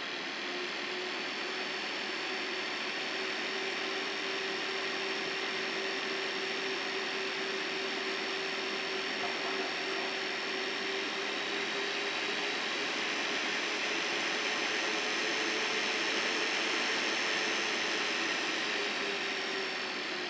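Sapphire RX 480 graphics card's cooling fans running, a steady whoosh with a hum and a high whine. The fan speed rises somewhat past the middle and eases back down near the end. This is the noise the owner presents as a fan noise problem.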